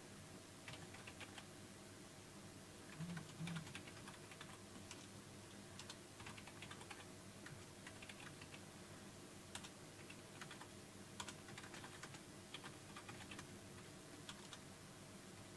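Faint typing on a computer keyboard, irregular key clicks scattered throughout, with two soft low thumps about three seconds in.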